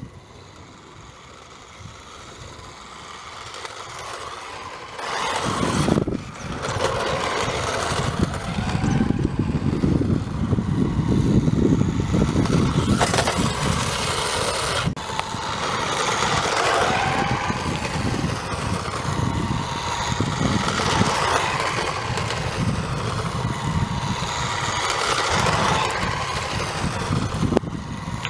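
Small electric motor and gears of a Sears 7.2 V radio-controlled 1957 Chevy toy car running, with its wheels rolling over rough asphalt. It comes in about five seconds in and stays loud, its whine rising and falling with speed.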